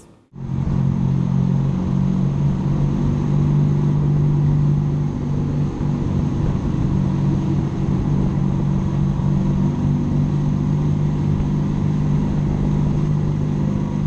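A 1975 Honda CB200's parallel-twin engine running at a steady cruise on the road, with road noise, heard from the handlebars while riding through a tunnel.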